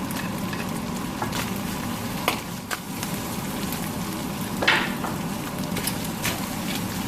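Ground beef sizzling as it browns in a frying pan, with a spatula scraping and knocking against the pan bottom every second or so; the loudest scrape comes near the middle.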